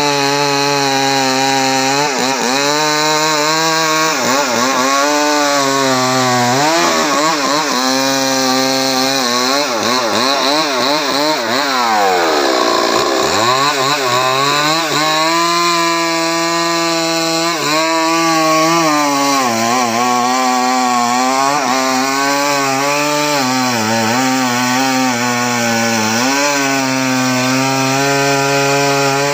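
Home-assembled chainsaw running hard while cutting into the trunk of a johar tree. The engine pitch keeps sagging and recovering as the bar loads up in the cut, with one deep bog and recovery about twelve seconds in.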